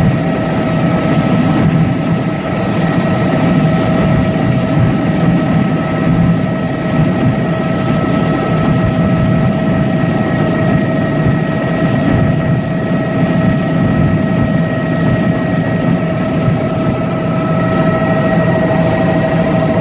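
Helicopter in flight heard from inside the cabin: loud, steady engine and rotor noise with a constant high whine running over it.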